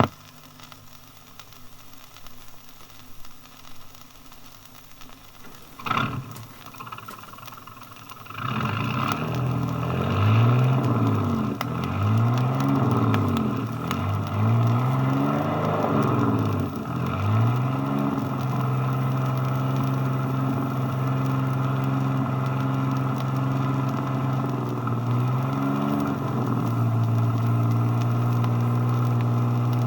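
A boat engine starts with a knock and comes in, revving up and down several times before settling into steady running.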